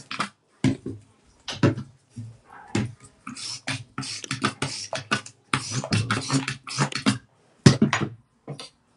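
Foaming hand-soap pump pressed over and over, each stroke squirting foam into a sink with a short wet puff, several a second in quick irregular runs.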